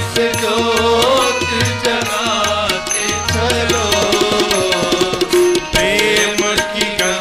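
Instrumental interlude of a Hindi devotional bhajan: a gliding melody line over quick hand-drum strokes and a deep, regular beat.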